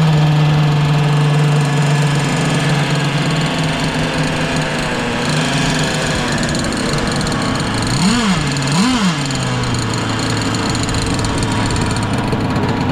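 The E Class RC offshore racing boat's small engine, just started, running steadily at a fast idle; about 8 and 9 seconds in it is blipped twice, revving up and back down, then it settles to a lower idle.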